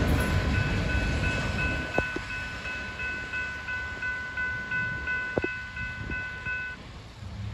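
Railroad grade-crossing bell dinging rapidly, about three strikes a second, over the fading rumble of a train moving away. The bell stops shortly before the end, and two sharp knocks come about two and five seconds in.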